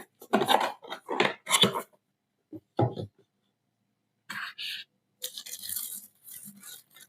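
Unboxing handling noise: a quick series of short scrapes and rustles as the packaging and the speaker are handled, then softer crinkly rustling about four seconds in.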